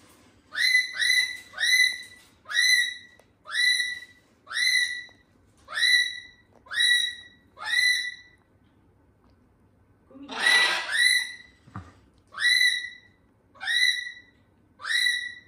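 Umbrella cockatoo giving a string of short whistled calls, each dipping quickly and then holding one pitch, about one a second. A little past the middle the calls stop for a moment and there is one harsher, noisier call before the whistles start again.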